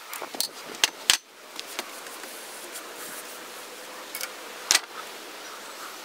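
Steady wind noise broken by a few sharp clicks and knocks, the loudest about a second in and again a little before the end.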